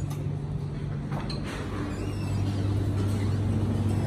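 Steady low mechanical hum of a buffet room's machinery, with a few faint clinks of crockery or utensils.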